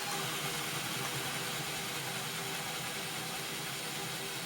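Cordless hammer drill in first gear, driving a 1-inch paddle bit through a treated 2x4. The motor runs steadily under load with a continuous whine and the bit chewing through the wood.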